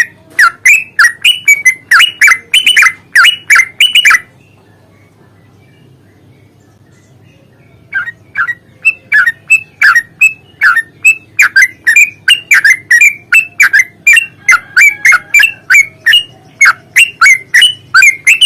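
Yellow-vented bulbul (trucukan) giving its long rapid song, a string of loud chirping notes at two or three a second, each dropping in pitch. A run of about four seconds is followed by a pause, then a longer run of about ten seconds.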